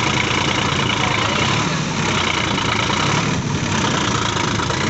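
Sonalika DI 42 tractor's diesel engine running steadily.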